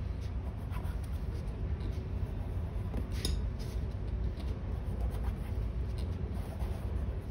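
Steady low background rumble, with a few faint light clicks and a brief scrape about three seconds in.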